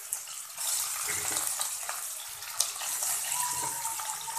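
Raw chicken pieces sizzling in hot oil in a steel karahi, a steady hiss with scattered crackles and pops, freshly added to the oil and starting to fry.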